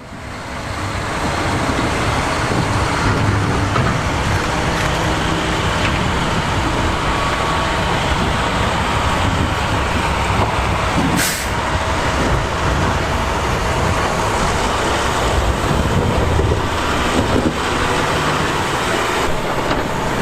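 Steady traffic and road noise of vehicles on a city street, with a brief hiss about eleven seconds in.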